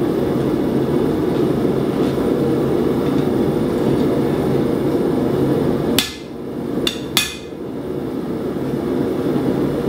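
Gas forge burner running steadily, with three sharp hammer blows on the steel parang blade a little past halfway as it is straightened. The forge noise dips after the blows and builds back.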